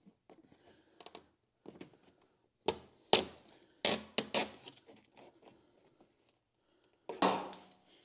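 A series of sharp clacks and knocks from handling parts on a kei truck's bare door, with the panel off. The loudest cluster comes about three to four seconds in, and one more knock with a short ring comes near the end.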